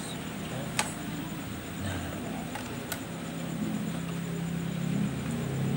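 A low, steady engine-like drone that grows louder toward the end, with a few short sharp clicks from thin metal wire being handled.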